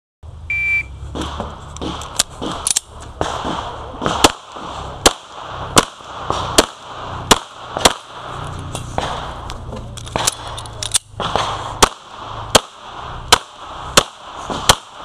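An electronic shot timer gives one short beep, the start signal, then a Springfield XD(M) pistol fires a steady string of shots, about one every three-quarters of a second.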